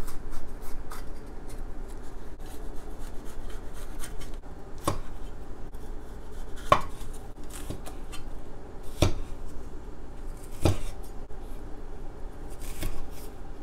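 Chinese cleaver cutting a red bell pepper on a round wooden cutting board: a scatter of light taps and knocks, with four sharper chops of the blade on the board about two seconds apart.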